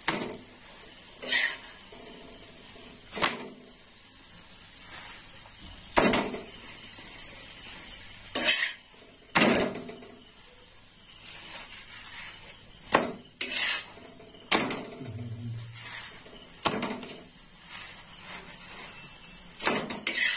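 Metal spatula clinking and scraping against a flat iron griddle (tawa) as parathas are lifted and turned, in irregular sharp knocks over a faint steady hiss.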